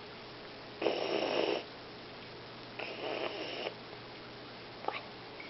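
Young barn owl giving two breathy, hissing snore calls, each a little under a second long. This is the wheezing snore that barn owl young use to beg for food.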